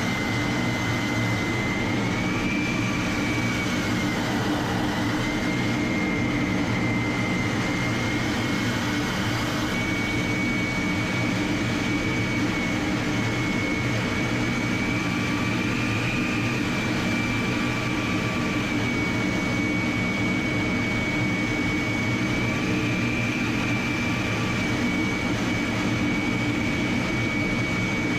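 Jet engine running steadily, a high whine that holds one pitch and wavers gently up and down over a low rumble.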